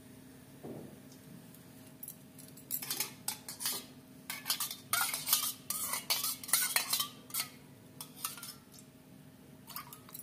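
Steel spoon stirring milk in a small stainless steel bowl, clinking and scraping against the bowl's sides. The stirring starts about three seconds in and stops about seven and a half seconds in, with a few light taps near the end.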